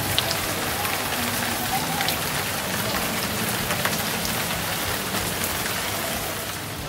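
Rain-curtain fountain: many thin streams of water falling from an overhead ring and splashing down, a steady, even hiss like heavy rain.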